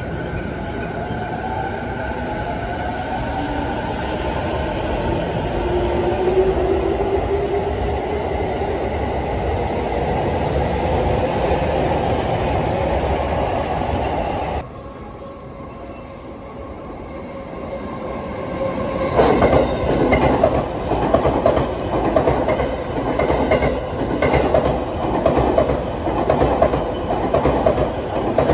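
A JR electric commuter train pulls out of the platform, its motors rising in pitch and getting louder as it gathers speed. About halfway through the sound cuts off abruptly. A few seconds later another JR electric train, an orange-striped Chuo Line set, runs along the far track with a rapid rhythmic clatter of wheels over rail joints.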